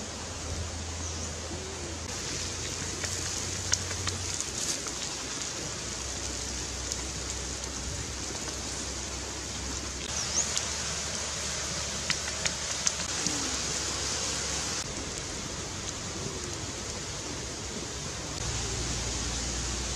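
Shrimp frying in oil on a hot stone slab over a wood fire: a steady sizzle with sharp pops now and then, a few around four seconds in and a cluster between about ten and thirteen seconds.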